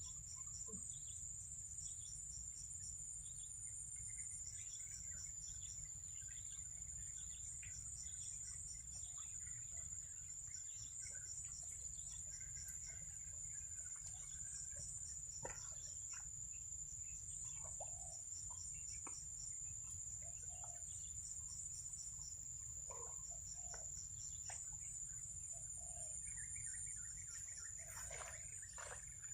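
Insects droning in a steady high-pitched whine, with quick chirps repeated in short groups and scattered bird calls over a faint low rumble.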